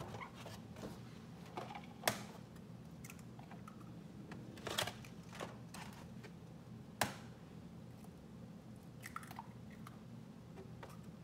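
Eggs being cracked and handled over a bowl: sharp knocks about two seconds in and again about seven seconds in, with lighter clicks of handling between, over a steady low hum.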